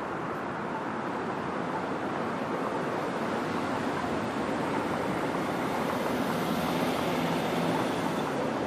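Street traffic: cars and a van passing through the intersection, a steady rush of engine and tyre noise that grows a little louder after the middle.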